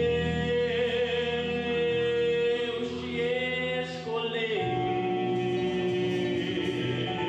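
Brazilian gospel music: long held vocal notes over sustained chords, the harmony shifting to a lower chord about halfway through.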